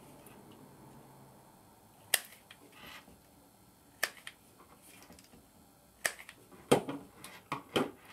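Self-adjusting wire stripper snapping shut on thin wires: about six sharp clicks, one every two seconds or so, then three in quick succession near the end.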